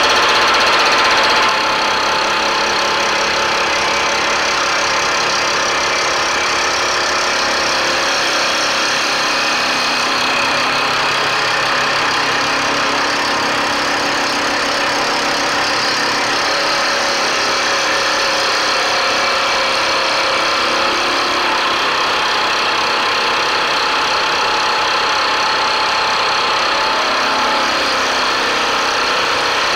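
Milling machine fly cutter taking a continuous facing cut across the cast-iron vice ways of a power hacksaw body: steady running of spindle and cut, slightly quieter after about a second and a half.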